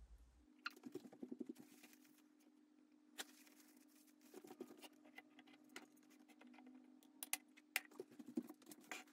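Very quiet handling sounds: faint rustling of a tissue as hands are wiped, with scattered light clicks, over a steady low hum.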